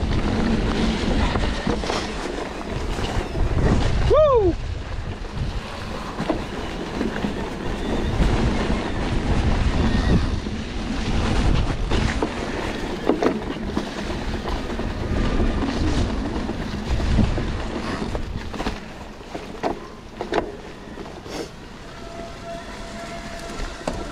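Wind buffeting the microphone over the rumble and rattle of a mountain bike rolling along a dirt trail, with scattered clicks and knocks. A short falling squeal comes about four seconds in.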